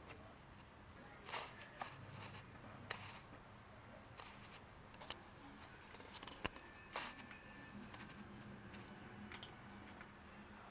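Faint, scattered small clicks and brief rustles from handling small objects, about ten irregular ones, with one sharp click about six seconds in.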